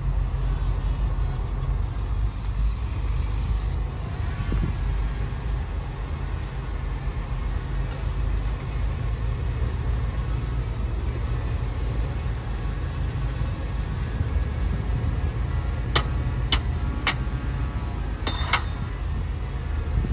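Diesel engines of heavy earthmoving machinery (bulldozer and dump trucks) running with a steady low rumble. A few sharp clanks come near the end.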